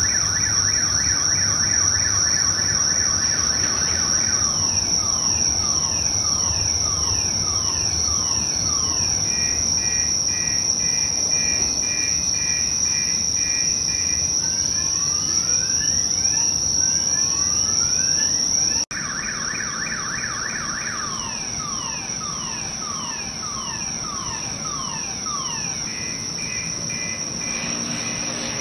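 Car alarm cycling through its tones: a fast warble, a run of falling chirps, a rapid two-tone beeping, then rising sweeps. The cycle breaks off briefly about two-thirds in and starts over.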